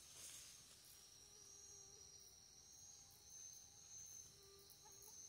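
Faint, steady high-pitched insect chorus, with a continuous wavering buzz over near silence.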